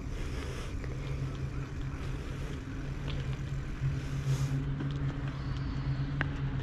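Wind and road noise of a moving bicycle, picked up by a GoPro, with a steady low hum that grows a little louder about four seconds in and a single sharp tick near the end.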